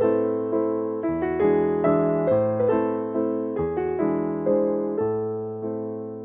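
Slow background piano music: soft chords struck one after another, each ringing and fading away.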